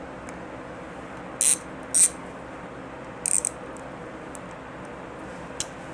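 A 3/8-inch drive ratchet being handled on a serpentine belt tool: three brief bursts of metallic ratcheting clicks about a second and a half, two, and three and a half seconds in, with a few lighter clicks of metal tool parts in between.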